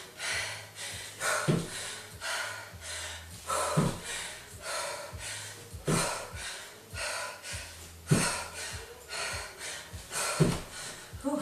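A woman breathing hard and panting in quick rhythmic breaths during squat jumps, with a thud of her trainers landing on the floor about every two seconds.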